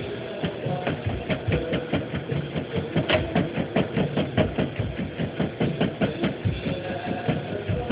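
Chef's knife rapidly chopping red and yellow chiles on a plastic cutting board: an even run of sharp knocks of the blade on the board, about four to five a second.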